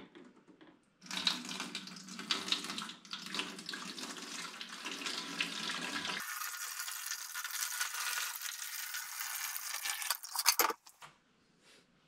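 Water pouring in a steady stream from one plastic dehumidifier bucket into another, starting about a second in; about halfway through the sound turns thinner and higher, and it stops near the end with a few last splashes.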